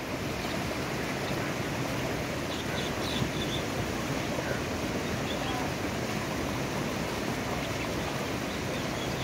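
Steady rushing of fast-flowing muddy floodwater, a constant even noise with no let-up.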